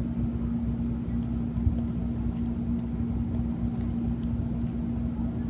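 A steady low hum with one constant tone and a rumble beneath it, unchanging throughout, with a few faint ticks about four seconds in.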